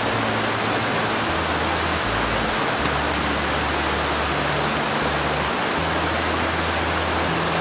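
Mountain river rushing steadily over rocks and boulders, a constant, even wash of water noise.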